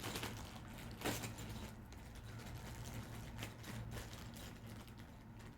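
Faint clicks and handling noises from opening a toy train car's box and packaging, the clearest click about a second in, over a low steady room hum.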